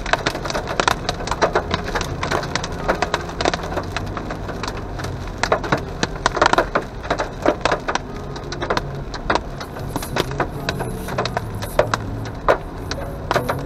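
Hail pelting a car's windshield and roof, heard from inside the cabin: sharp, irregular clicks, several a second, over the steady drone of tyres on the wet road.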